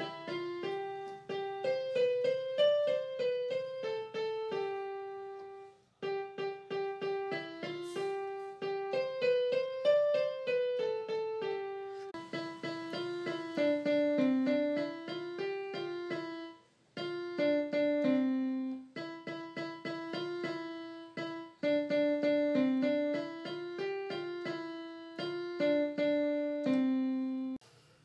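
Background piano music: a light, rhythmic melody of repeated notes. It breaks off briefly a few times, about six seconds in and again near seventeen seconds, and starts again each time.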